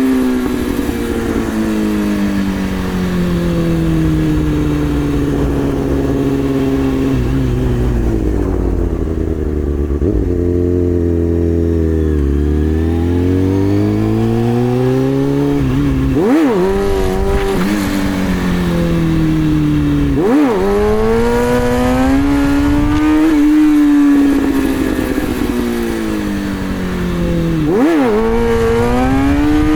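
2003 Kawasaki ZX-6R 636's inline-four engine held in first gear while ridden, its revs sinking slowly for about the first twelve seconds and then climbing again. In the second half the revs drop sharply and pick straight back up several times, like quick throttle chops or clutch pulls.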